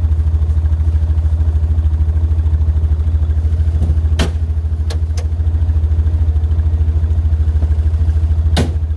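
Yamaha Rhino 700 side-by-side's engine running steadily at low speed with a pulsing hum, with a few sharp knocks near the middle and again near the end.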